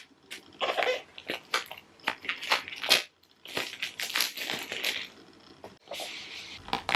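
Paper and cardboard packaging of an Apple Pencil box being worked open by hand: a run of crinkling, crackling and scraping with small clicks, stopping briefly twice.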